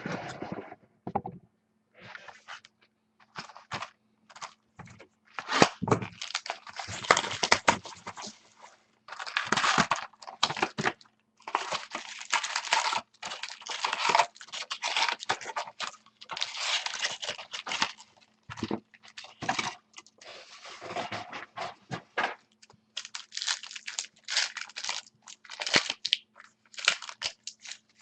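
Trading card box and pack wrapping being torn open and crumpled, in irregular crinkling bursts, over a faint steady hum.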